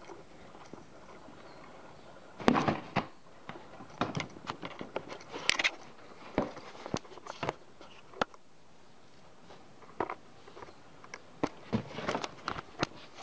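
Cardboard box knocking and scraping as a cat inside plays with a stick poked in through a hole in the box. The knocks and scrapes come irregularly, in several short clusters.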